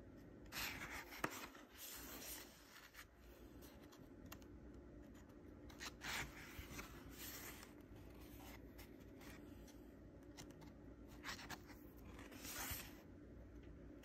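Thick drawing-paper pages of a handbound book being turned by hand: several brief, soft paper swishes and rubs, with faint room tone between them.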